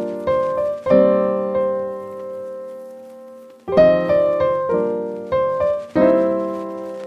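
Background piano music: struck notes and chords that ring and fade away. About a second in, a held chord slowly dies away before the notes start again.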